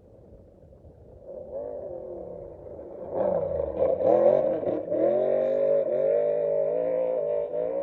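Off-road race vehicle engine approaching at speed, growing louder from about a second and a half in. Its note dips and climbs as it revs hard around the middle, then holds high and steady.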